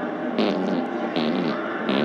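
Imitation fart noises made by a man: short pitched, buzzy blasts that bend in pitch, about three in quick succession.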